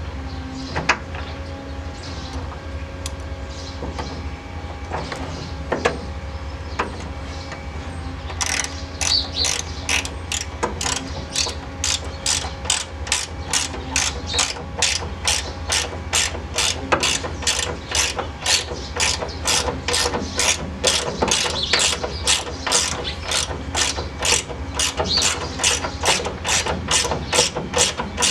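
Hand ratchet wrench clicking as a bolt is turned. For the first eight seconds or so there are only scattered clicks and knocks; after that comes an even run of about three clicks a second. A steady low hum runs underneath.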